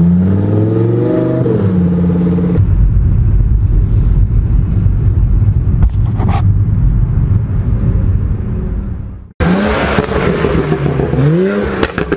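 Car engines revving: the pitch climbs in the first second or so, then a loud low rumble runs on. After an abrupt break about nine seconds in, an engine gives two quick revs that rise and fall.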